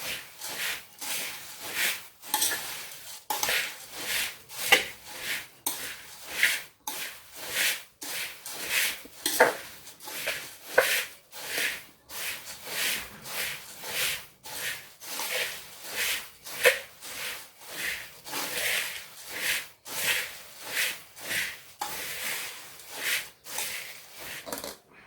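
Dry puffed rice being stirred and tossed with a spoon in a cooking vessel: a crisp, dry rustling in quick repeated strokes, with light contacts of the spoon on the vessel.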